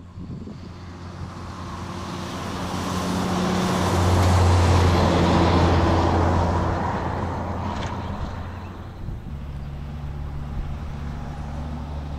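A heavy road vehicle's engine hum swells to a loud peak about four to six seconds in as it passes, then fades. From about three-quarters of the way through, a second vehicle's engine hums steadily.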